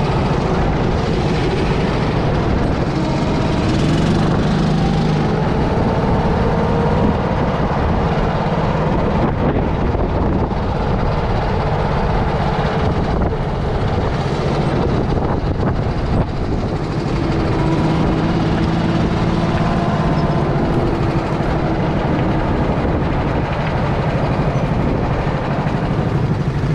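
Go-kart engine running while the kart is driven, its pitch drifting up and down with the throttle, under a loud steady rush of wind and road noise.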